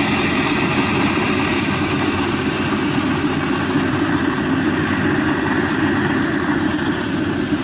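FMWorld WD 102pro rice combine harvester running steadily while cutting rice: a continuous engine drone mixed with the clatter of its threshing machinery.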